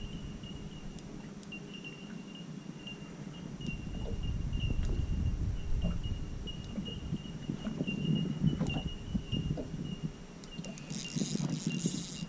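Spinning reel being wound while playing a hooked fish from a small boat: uneven low rumbling and knocking from the reel and rod handling, swelling a few times, with a short hissy burst near the end. Under it runs a faint steady high-pitched tone with a soft pulse about twice a second.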